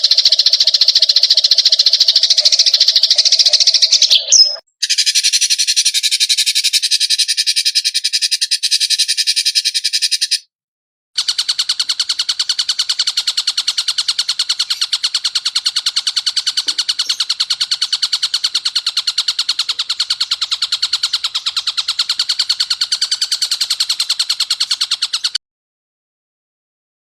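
Edited recordings of rapid, rattling animal trills, cleaned up as song material for training cage songbirds. They come as three clips of different trills, each cut off abruptly, with short gaps between them; the last and longest is a fast, even pulsing, followed by a short silence near the end.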